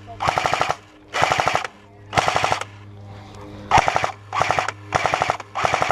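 Airsoft rifle firing seven short full-auto bursts, each a rapid string of shots lasting under half a second, with brief pauses between them.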